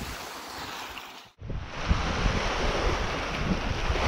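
Small waves breaking and washing over the rocks of a lakeshore, with wind buffeting the microphone as a low rumble. The sound drops out briefly just over a second in, then comes back louder.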